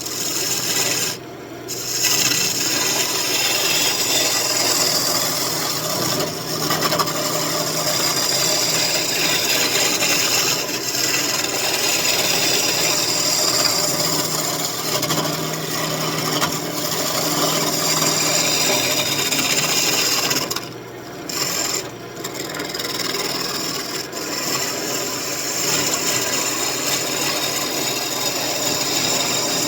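Wood lathe with an elm spoon blank spinning, a turning tool cutting it to smooth the surface: a steady rasping, broken off briefly twice when the tool comes away.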